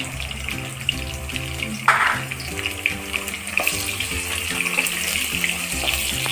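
Sliced onions sizzling and crackling in hot oil in a pan as they begin to fry, with a brief louder hiss about two seconds in. Background music plays underneath.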